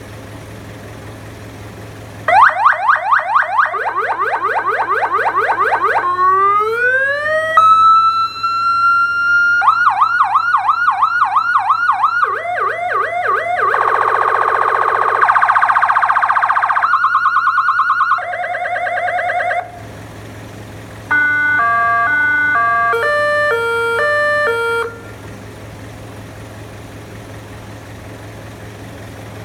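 Electronic vehicle siren run through its tones. About two seconds in comes a fast yelp, then a rising wail held at a steady pitch, more yelping, other warbling and alternating patterns and a quick yelp. After a short break, a few seconds of stepped tones follow. A steady low hum sits underneath throughout.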